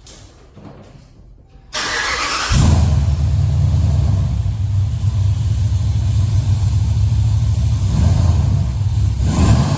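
Car engine starting: it cranks about two seconds in, catches, and settles into a low, steady idle.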